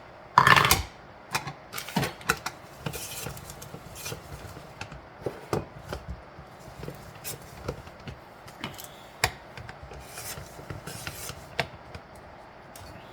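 Pepper jack cheese being grated by hand: irregular rasping and scraping strokes, with a louder knock about half a second in.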